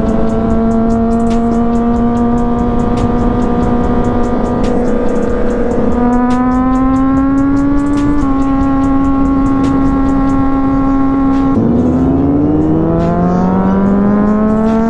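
Sportbike engine and exhaust under way, holding a steady, slowly rising pitch with small changes in revs near the middle. About twelve seconds in the revs drop sharply, then climb steadily as the bike accelerates again.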